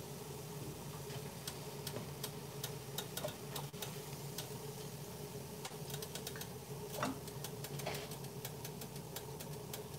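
Scattered light ticks and crackles from hot oil and a slotted spoon as fried plantains are lifted out of the pan onto a plate, over a steady low hum.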